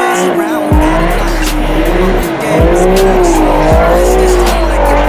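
Car tyres squealing in a burnout or donuts, the squeal wavering up and down in pitch without a break. Hip-hop music with deep booming bass hits and ticking hi-hats plays under it.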